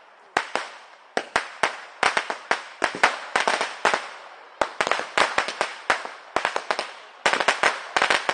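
Firecrackers exploding in rapid, uneven volleys of sharp bangs, several a second, with brief lulls between the volleys.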